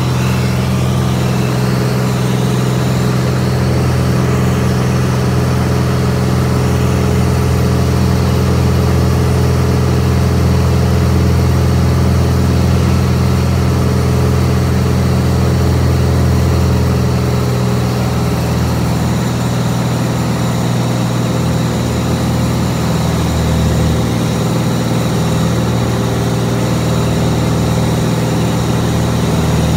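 Vans RV-10's piston engine and propeller droning steadily, heard from inside the cockpit. The low hum thins slightly a little past halfway through.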